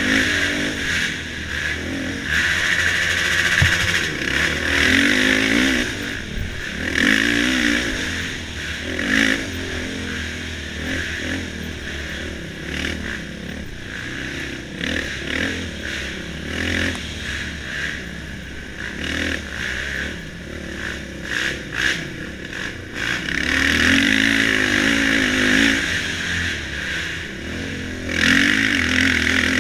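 Off-road dirt bike engine revving up and down over and over as the throttle is worked, with scattered knocks and rattles.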